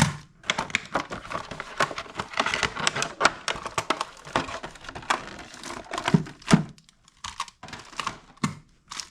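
Product packaging being opened and handled by hand: a busy, irregular run of clicks, taps and crinkles, with a couple of heavier knocks past the middle.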